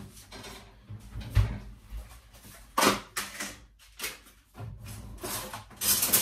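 Kitchen handling noises: a series of sharp knocks and clatters, roughly one a second, as things are set down and moved about on the counter.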